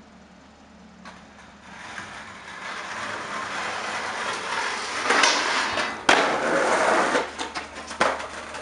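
Skateboard grinding down a metal handrail, a scraping that grows louder over several seconds, then a sharp slap of the board landing about six seconds in and the wheels rolling on concrete, with another knock near the end.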